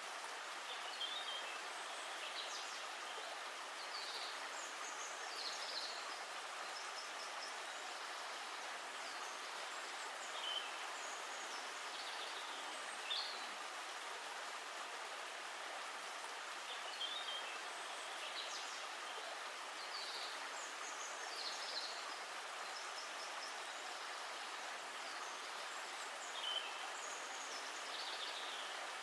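Steady rush of running water, like a stream, with short high bird chirps now and then.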